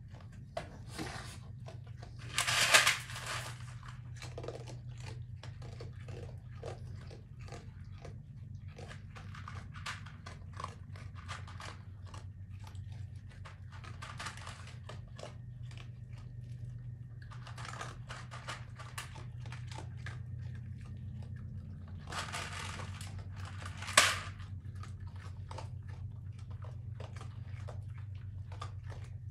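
Raccoons chewing and crunching dry food from dishes: many small irregular crunches over a steady low hum. Two much louder, sharper noises stand out, one about three seconds in and a short one near the end.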